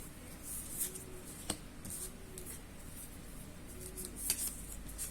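Tarot and Lenormand cards being handled on a table: a few scattered soft taps and slides of the cards over a quiet background.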